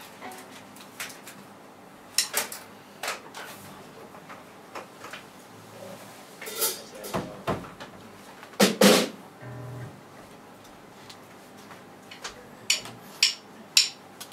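A few scattered drum and cymbal hits as a player settles at a drum kit, with one louder drum hit about two thirds of the way in and a short low bass note just after it. Near the end come evenly spaced sharp stick taps, about two a second, like a count-in.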